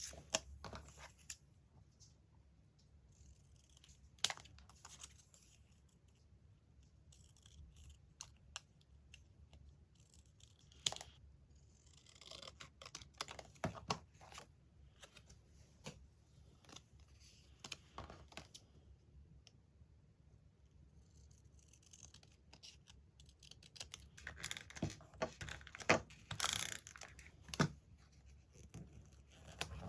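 Paper handling: magazine paper being rustled, cut and torn, with scattered sharp taps and clicks. It gets busier about twelve seconds in and again near the end.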